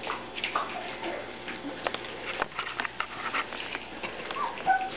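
Young puppies' paws pattering and scrabbling on yogurt-painted paper sheets, with a few short high squeaks from the puppies, the loudest near the end.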